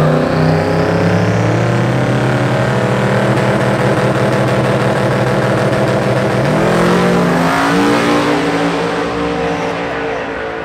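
Two Ford Mustangs, a New Edge and a Fox body, drag racing side by side, their engines held at full throttle down the track. About seven seconds in, the engine note drops and shifts in pitch.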